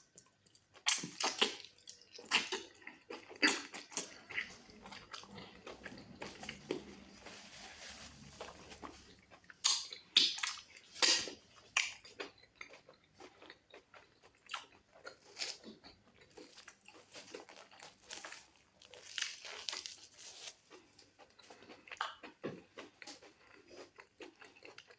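Close-miked mukbang eating: wet chewing, smacking and biting on fufu, goat meat and black soup, in irregular sharp clicks, loudest about ten seconds in.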